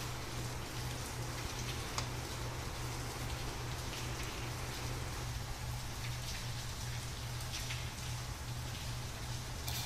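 Steady hiss like rain, over a low, steady hum, with a single sharp click about two seconds in.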